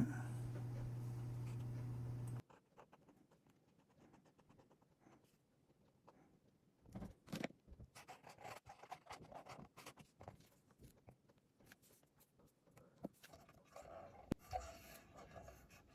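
A steady low hum that cuts off abruptly about two and a half seconds in, then quiet, then scattered faint small clicks, taps and scrapes of hand-work on the speaker as its cap is fitted back on.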